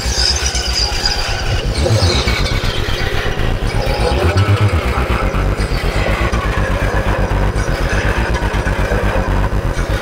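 Distorted analog synth bass in a live acid jam: a Behringer TD-3 sequencing a Moog Werkstatt and a PAiA Fatman through distortion, phaser, bitcrush and delay, making a loud, dense line with a fast, even pulse. A deeper low note swells briefly twice, about two and four and a half seconds in.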